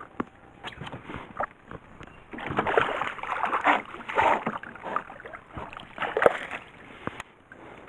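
A hooked small bass splashing at the surface beside the boat as it is netted, with bursts of splashing for about two seconds from about two and a half seconds in, and a shorter splash about six seconds in.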